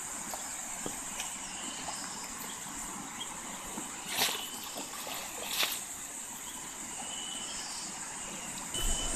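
A cast net thrown from the bank lands on a flowing river with a short splash about four seconds in, followed by a second splash about a second and a half later, over the steady rush of the river and a constant high hiss.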